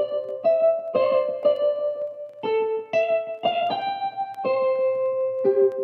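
Background piano music: single notes and chords struck a few times a second, each ringing on.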